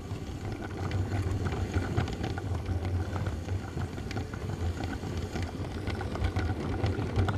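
Lego train's small electric motor and plastic wheels running along the track, heard from on board: a steady low hum under a busy rattle with many small clicks.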